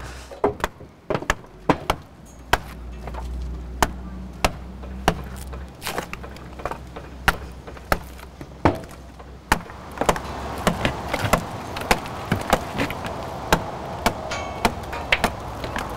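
Tools striking an oak trunk being carved: sharp, irregular knocks, about one or two a second, coming faster in the second half, over a low steady hum.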